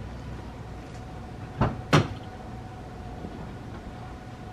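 Two short, sharp knocks about a third of a second apart, about one and a half seconds in, over a steady faint hum.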